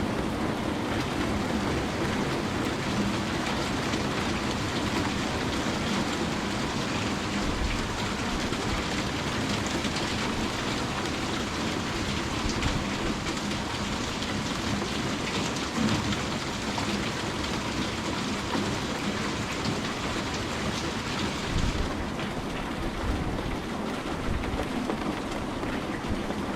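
Steady rain falling, an even hiss of drops on surfaces. The brightest part of the hiss thins out near the end.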